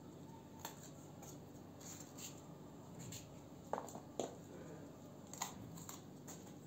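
Knife cutting through fresh green peppers held in the hand: faint, scattered crisp snips, two sharper ones a little past the middle.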